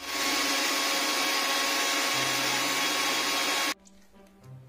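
Electric mixer grinder running, grinding cumin seeds and cardamom pods to powder: a steady motor-and-blade noise that starts abruptly and cuts off suddenly after nearly four seconds.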